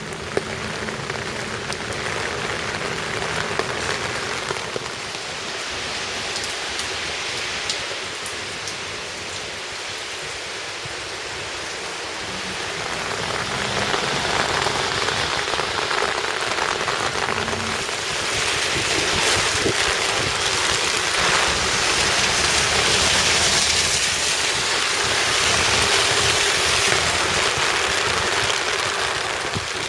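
Heavy wind-driven rain from a passing typhoon: a dense, steady hiss that swells louder in gusts from about halfway through.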